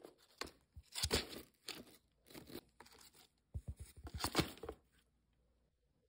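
Indian ringneck parakeet scuffing and crunching the cardboard of a box, in several short crackling bursts, stopping about five seconds in.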